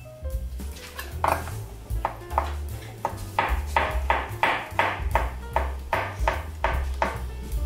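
Kitchen knife slicing fresh shiitake mushrooms on a cutting board: a steady run of short cuts, about two to three a second, beginning about a second in, over background music.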